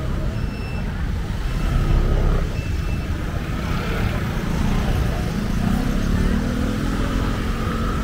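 Street traffic noise: a steady rumble of passing cars and scooters, with faint voices of people on the pavement. A faint high beep repeats about once a second in the first few seconds.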